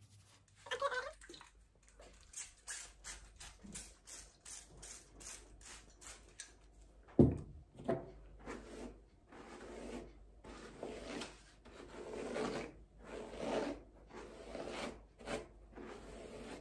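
Wet hair rubbed by hand and then run through with a detangling brush: a series of short swishing strokes, with one sharp knock about seven seconds in.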